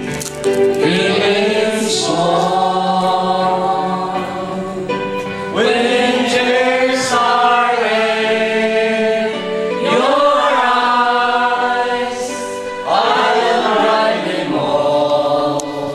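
A group of men and women singing a song together, led by a man singing into a handheld microphone. It goes in long held phrases, four of them, with short breaths between.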